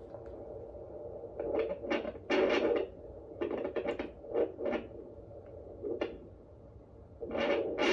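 Pocket fetal Doppler's speaker turned all the way up, giving a steady hum broken by irregular scratchy swishes as the gel-covered probe is slid over the lower belly. It is still searching: no steady heartbeat rhythm comes through yet.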